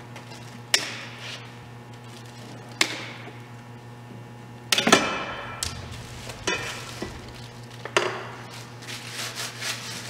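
Scissors snipping through plastic packing straps and ties, a few sharp snaps a couple of seconds apart, with plastic wrap crinkling near the end. The loudest, a clack with a brief ring, comes about halfway through.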